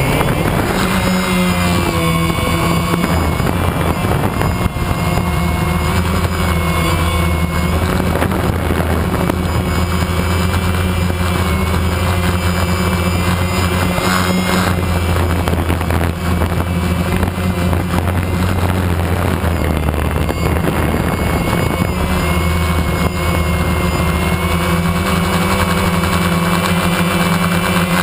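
A multirotor drone's electric motors and propellers make a loud, steady whine and buzz, heard close up through the camera mounted on the drone. The pitch shifts near the start as it lifts off the ground and wavers now and then as it climbs and manoeuvres.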